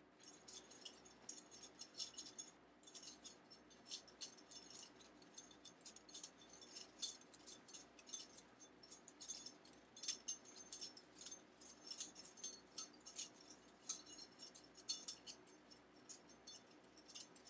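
Balisong (butterfly knife) being flipped by hand: quick, irregular metallic clicks and jingling as the loose handles and blade swing around and knock together.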